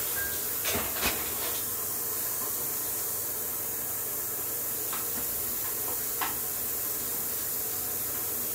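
Hot water running from a tap into a sink, a steady hiss, with a few light knocks about a second in and again around five and six seconds in as the sticky kit pouch is rinsed out.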